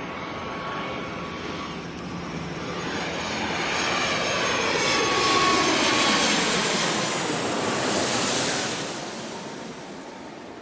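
Airplane passing low overhead on its landing approach: engine noise with a high whine swells to a peak past the middle, its pitch sliding down as it goes by, then fades away.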